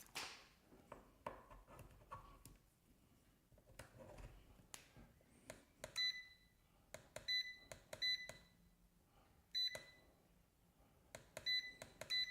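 Digital multimeter (Kaiweets KM601) giving a series of short, high beeps, some single and some in quick pairs, starting about halfway through. Before the beeps, faint clicks of test leads and parts being handled.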